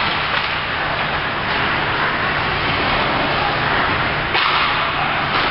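Ice rink game noise: a steady hiss of skate blades on the ice over a constant low hum, with a brief louder burst about four seconds in.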